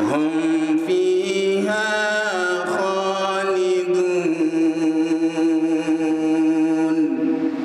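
Quran recitation: a single voice chanting Arabic in long held notes, ornamented with short melismatic turns about two and three seconds in.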